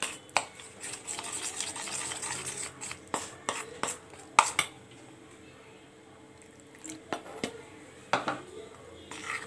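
Metal spoon stirring a flour-and-water batter in a steel bowl: a steady scraping for the first few seconds, then a few sharp clinks of the spoon against the bowl, the loudest about four and a half seconds in, with quieter stirring after.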